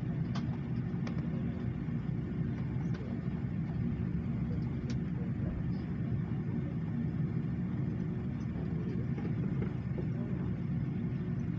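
Steady low rumble of an Airbus A330 heard inside the passenger cabin, with a few faint clicks.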